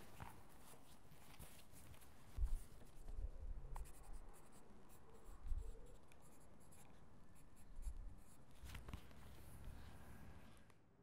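Pencil scratching across notebook paper as words are written by hand, with a few soft low bumps from handling the notebook.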